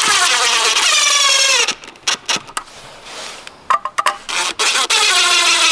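Cordless DeWalt drill driver driving two screws through a steel back box into wall plugs, in two runs of a second or two each. The motor's whine drops in pitch as each screw pulls tight, with small clicks between the runs.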